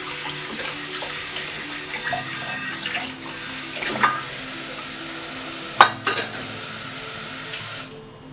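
Tap water running into a kitchen sink while cookware is washed, with clinks and knocks of pans and utensils, loudest about six seconds in. The running water stops near the end.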